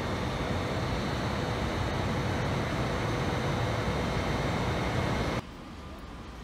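Steady indoor ambience of a shopping-mall corridor: a constant rumble and hiss with a few faint steady tones. About five seconds in it cuts off abruptly to a much quieter outdoor background.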